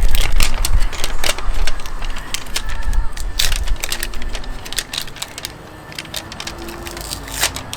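Irregular clicks, knocks and rattles of tire-plug tools being handled, over a low rumble.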